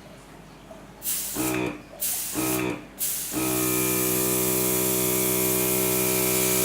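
RIBO HC23 mini airbrush compressor and airbrush: two short bursts of spraying air hiss, each followed a moment later by the compressor's motor humming on and stopping again, as its auto start-stop switch responds to the airbrush trigger. From about three seconds in the airbrush sprays continuously and the motor runs steadily under it.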